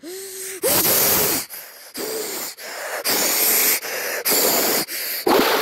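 A person making loud, rapid breathy huffs and hisses into the microphone, about one and a half a second, with a short voiced sound at the start and another near the end.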